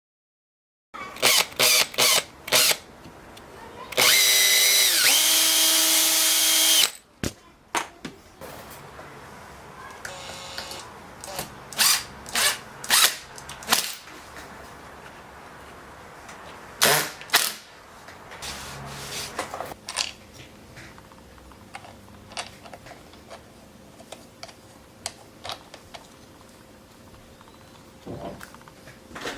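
Power drill running for about three seconds, its pitch sinking as it loads up, with a shorter, fainter run a few seconds later. Sharp knocks and clicks of parts and tools being handled come before and after.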